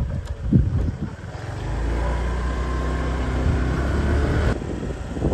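Motorbike engine running as it rides along, with wind rumbling on the microphone.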